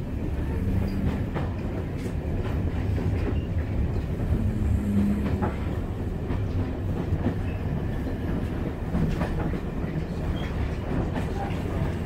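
Diesel passenger train running along the line, heard from inside the carriage: a steady low rumble of engine and wheels on the track, with occasional faint clicks.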